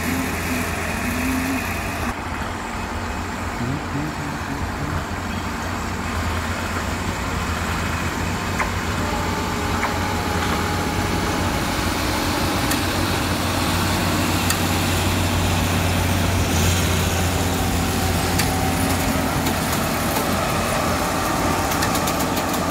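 Engine of a self-propelled track-relaying portal gantry running steadily as the machine moves along the rails carrying concrete sleepers, a constant low drone with a few faint metallic clicks.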